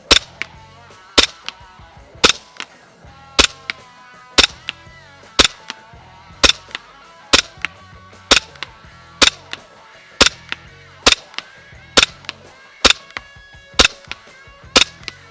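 WE Glock 17 gas blowback airsoft pistol firing shot after shot at a steady pace of about one a second, some fifteen sharp cracks in all. Background music plays underneath.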